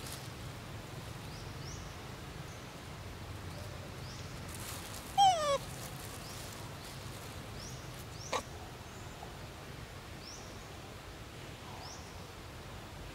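A young macaque gives one short, loud call that falls in pitch about five seconds in. Under it is a steady forest background with faint high bird chirps repeating about once a second, and a single sharp click a few seconds after the call.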